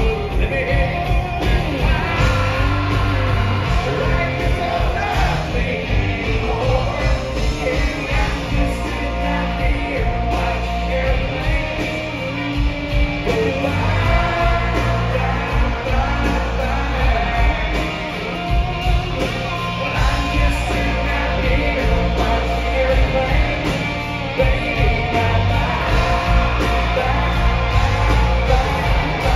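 Live country band playing loud in a large hall, recorded from the crowd: a male lead singer over electric guitar, pedal steel and organ, with a steady bass.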